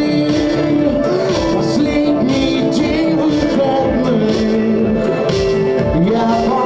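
A band playing live: a man singing into a microphone over guitar, with a steady beat.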